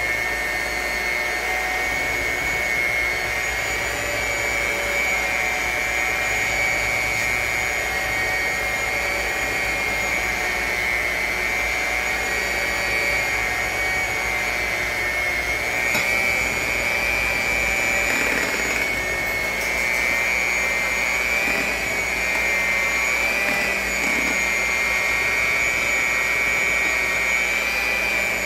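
Handheld electric mixer running steadily, its beaters turning in thick brownie batter, with a steady high-pitched motor whine.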